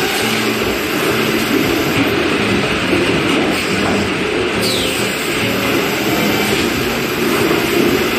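Eight-head capless induction sealing machine running: a steady, loud mechanical clatter as jars index along the conveyor under the sealing heads, with a short falling whine about four and a half seconds in.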